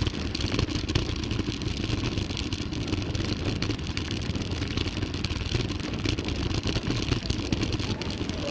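Mountain bike descending a downhill trail: a steady low rumble of wind and tyres rolling over the trail, with constant small rattles and knocks from the bike.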